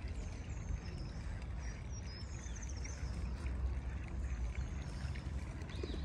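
Outdoor town ambience on a walk: a steady low rumble with an even hiss over it, and a few short high chirps near the start and about two seconds in.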